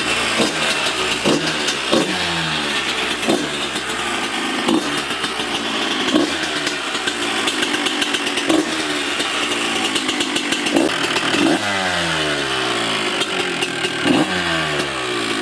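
1993 Honda CR125 two-stroke single-cylinder engine, freshly rebuilt top end, running and revving up and down over and over.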